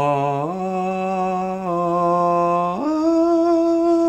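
A single voice holding a sung or hummed note that steps up in pitch, then jumps about three seconds in to a much higher note and holds it.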